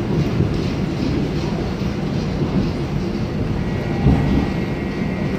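Seoul Metro Line 1 electric train running, heard from inside the passenger car: a steady rumble of wheels on track. A steady high tone comes in about three and a half seconds in, and there is a single knock just after four seconds.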